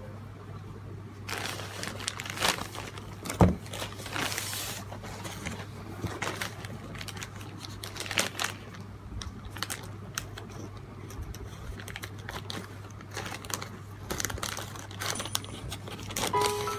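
Plastic poly mailer bag crinkling as it is handled and cut open with scissors, with irregular rustles and sharp crackles over a faint steady hum.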